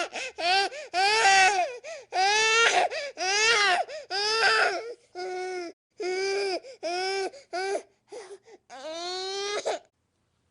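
Infant crying in a run of short, repeated wails, each rising and falling in pitch, with brief catches of breath between them and a few short whimpers near the end.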